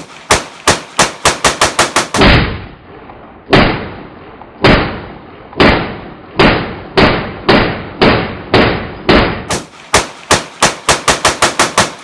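Rifle fired in rapid strings of single shots: a fast run of about ten shots, then slower shots about one a second, speeding up again to a fast run near the end.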